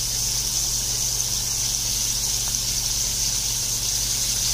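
Batter-coated boneless chicken pieces deep-frying in vegetable oil in a kadhai, a steady high-pitched sizzle.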